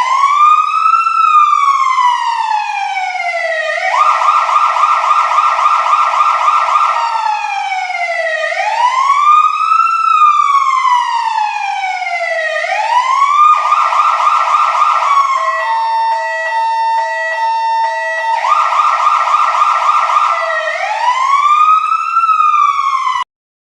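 Electronic emergency-vehicle siren cycling through its modes: a wail rising and falling every three seconds or so, several stretches of rapid warbling yelp, and a short stretch of alternating steady tones. It cuts off suddenly near the end.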